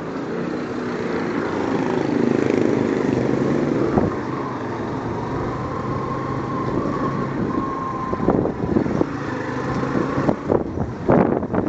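Motorcycle taxi's engine running steadily as it rides, heard from on board. In the last few seconds the sound turns uneven, with several sudden thumps and gusts on the microphone.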